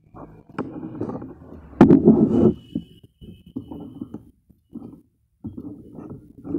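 Folded paper fans rustling and being handled as one is pressed onto a cardboard ring, in uneven bursts. About two seconds in a sharp click is followed by the loudest stretch of handling, with a faint thin high tone after it.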